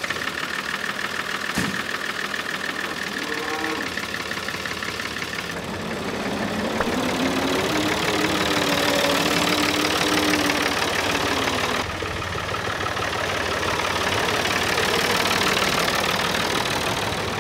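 David Brown 885 tractor's 2.7-litre three-cylinder diesel engine running just after starting. It runs steadily, then gets louder and faster about five and a half seconds in.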